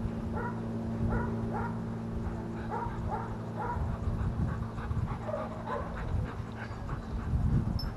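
A dog making short, high-pitched cries, about two a second, thinning out after the first few seconds, over a steady low hum.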